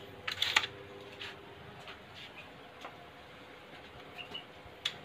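Mechanical clicks of a PCP air rifle being cocked and loaded between chronograph shots: a quick cluster of sharp clicks about half a second in, then a few fainter scattered clicks and one more sharp click near the end, over a faint steady hum.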